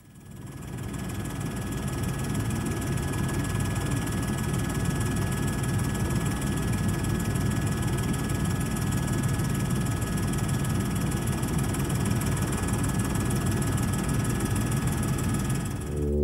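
Steady aircraft engine noise, a low drone with a thin steady whine above it, fading in over the first two seconds and then holding level.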